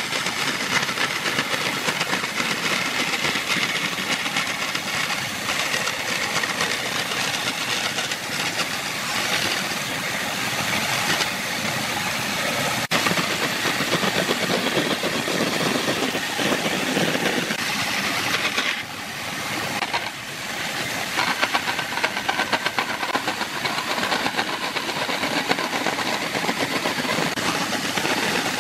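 Band saw running and cutting through wooden boards, a steady, dense saw noise. The sound changes abruptly about halfway through and dips briefly about two-thirds of the way in.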